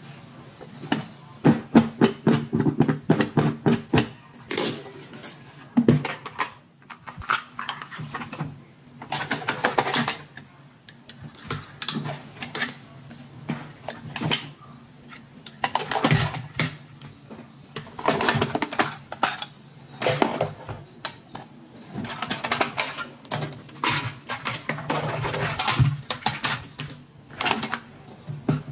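Small plastic toys and their packaging being handled: an irregular run of crinkling rustles and quick clicks and taps.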